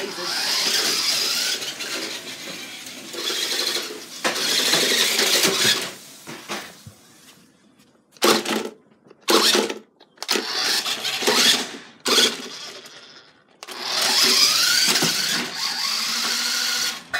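Radio-controlled toy car's electric motor and wheels whirring in repeated bursts as it is driven on and off, several of them short stabs, with the pitch rising as it speeds up.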